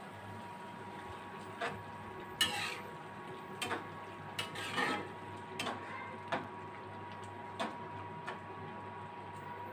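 A spatula stirring soup in a metal kadai, scraping and knocking irregularly against the pan, with two longer scrapes and several short knocks over a faint steady hum.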